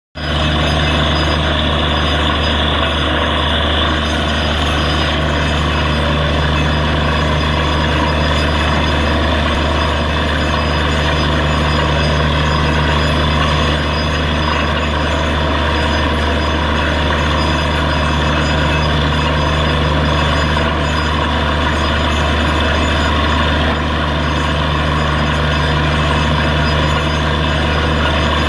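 Truck-mounted borewell drilling rig running steadily, its engine giving a deep hum under a loud, continuous rush of water gushing up out of the newly struck borehole.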